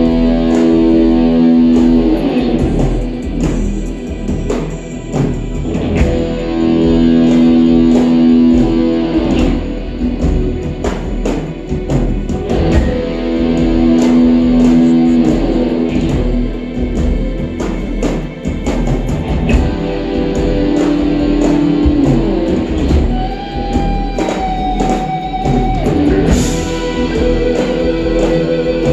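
Progressive rock band playing an instrumental passage live: guitar playing held chords in phrases of a few seconds over drums.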